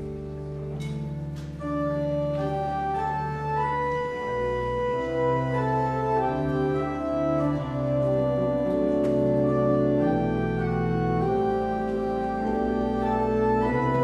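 Church organ playing a slow prelude in sustained chords, with a melody moving over held low notes. It swells louder a little under two seconds in.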